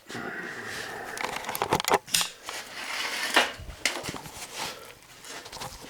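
Harbor Freight 1/2-inch ratchet being forced: a grinding scrape, then a run of sharp metallic clicks and clacks. Its internal teeth are worn away, and the ratchet is failing.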